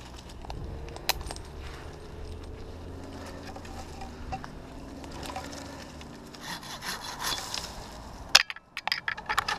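Climbing rope and gear rubbing and scraping against oak bark as the climber shifts along a limb, over a faint low hum. A sharp click about a second in, and a cluster of loud clicks and knocks near the end.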